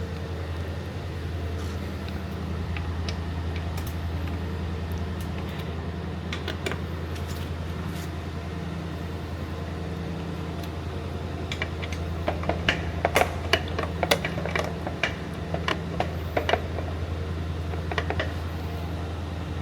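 Quarter-inch ratchet wrench clicking in short runs as bolts are tightened, mostly in the second half, over a steady low hum.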